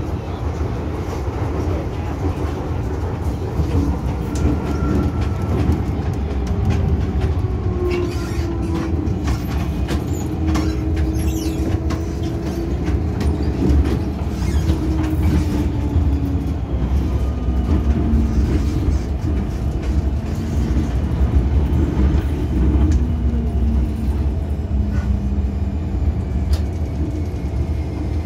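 MTR M-Train running along the line, heard from inside the car: a steady low rumble of wheels on rail, with pitched motor tones that slide down in pitch several times and scattered sharp clicks of the wheels over the track.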